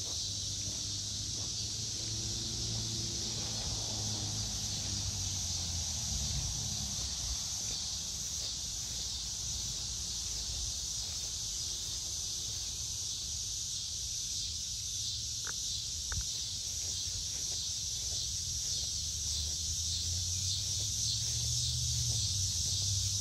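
Steady chorus of insects: a high, shrill drone with a fast flutter in it, over a low rumble.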